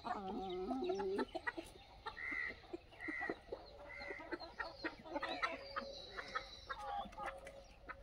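Free-range desi chickens clucking and calling, with a few short high-pitched calls in the middle and scattered faint clicks.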